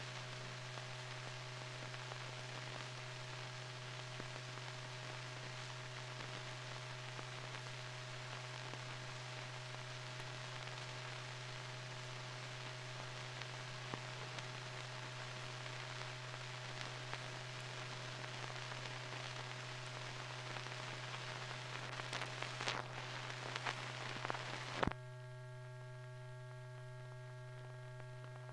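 Steady hiss and electrical hum of a silent archival film transfer, with scattered crackles and clicks. About 25 seconds in the hiss cuts off suddenly, leaving only the hum.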